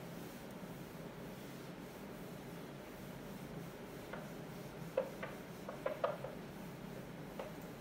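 Faint scratching of handwriting, with a handful of short taps and scrapes about four to seven seconds in, over a low steady hum.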